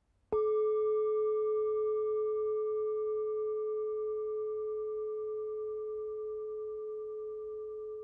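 A single bell-like tone struck about a third of a second in, ringing on with a few fainter higher overtones and fading slowly: the closing audio logo.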